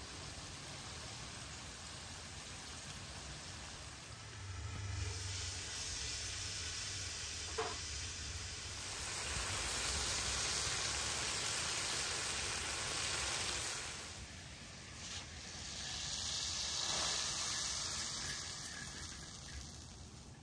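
Diced chicken breast frying in oil on an iron sadj: a steady sizzle that swells loudest in the middle and again near the end, with one short clink a little over a third of the way in.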